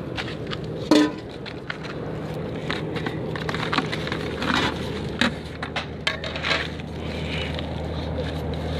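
Scattered clicks and knocks of goat parts being handled on a metal grill rack, over a steady low hum; the loudest knock comes about a second in.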